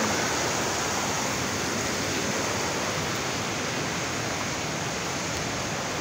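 Shallow river water flowing and rippling, a steady rush of water noise.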